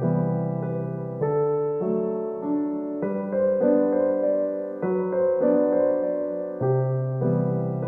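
Slow, gentle piano music: soft sustained chords over low bass notes that change every second or so.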